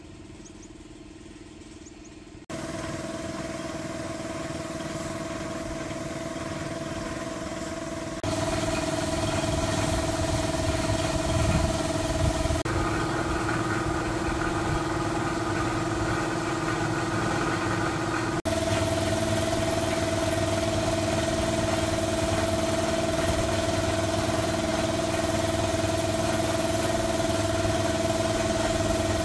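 Car engine idling steadily, heard in several short takes joined by abrupt cuts, each one louder than the last. The first two seconds are only a faint hum before the engine comes in.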